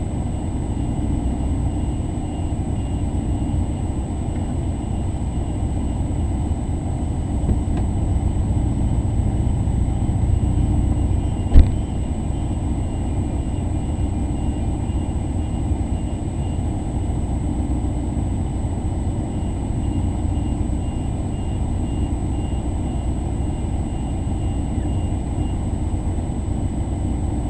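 Maserati 3200 GT's twin-turbo V8 idling steadily, heard from inside the cabin. A single sharp knock comes about halfway through.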